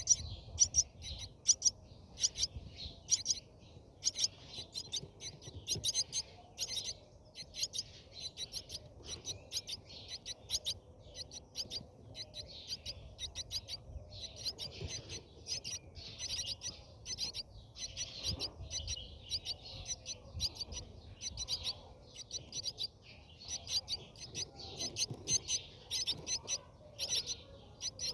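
Brahminy starlings chirping: rapid runs of short, high-pitched chirps, nearly unbroken, with the loudest calls right at the start.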